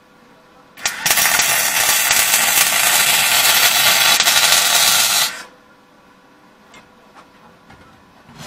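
Semi-automatic gas-shielded (MIG) welder's arc crackling steadily as a bead is laid on a steel angle with 1 mm copper-coated SV08G2S wire, starting about a second in and cutting off sharply some four and a half seconds later. A few light taps follow near the end.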